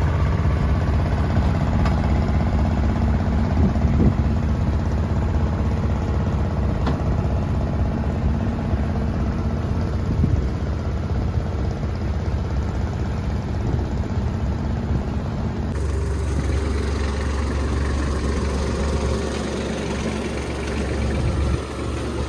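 Engines of road-paving machinery idling steadily, a low continuous drone. About sixteen seconds in the sound changes abruptly to a closer, deeper engine drone, that of a small asphalt finisher.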